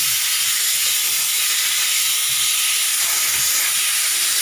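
Disinfectant sprayer spraying with a steady hiss.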